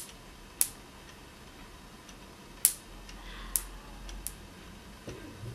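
Electric sparks snapping across a gap in a homemade high-voltage alarm circuit: about five sharp cracks at uneven intervals.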